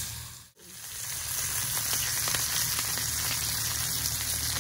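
Jalebi fish (tilapia) frying in hot oil: a steady sizzle with small crackles. It cuts out briefly about half a second in, then resumes.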